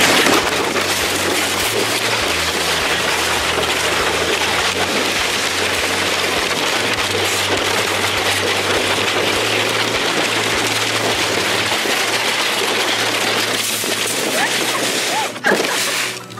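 Plastic sled sliding fast down an iced slide chute, making a steady, loud rushing scrape with wind rushing over the microphone. The noise drops away suddenly about fifteen seconds in as the sled slows at the bottom.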